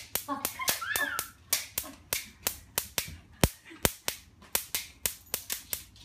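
Electric fly-swatter racket giving off sharp snapping cracks, about three a second, as its grid arcs with the button held; two heavier cracks come a little past the middle. A short cry about a second in.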